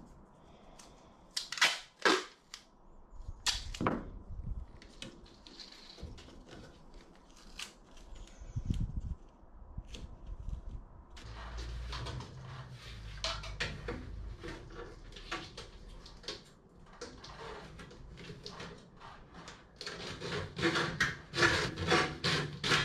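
Workshop tool and handling noise: a series of sharp snaps and clicks, a few loud ones in the first four seconds, then denser clicking and clattering with a low rumble from about eleven seconds in.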